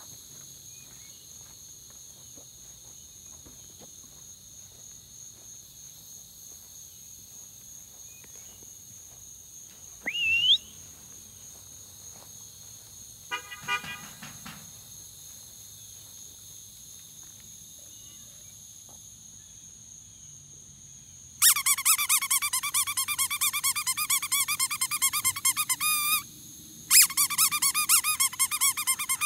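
Rubber squeaker dog toy squeezed rapidly and repeatedly, over and over for several seconds, with a short pause before it starts again; it is being used to call dogs back. Before it there is a short rising whistle.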